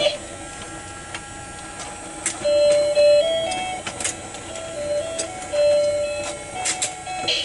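Electronic toy fishing game playing a simple beeping tune through its small speaker over the whirr of its rotating pond motor, with sharp clicks as its plastic buttons are pressed. The tune gets louder and softer in stretches as the volume button is pressed.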